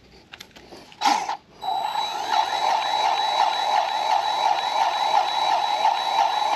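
Cordless DeWalt grease gun's electric motor whirring steadily as it pumps grease into the front caster wheel's grease fitting, with a thin high whine on top. It gives a short burst about a second in, then runs continuously from about a second and a half in.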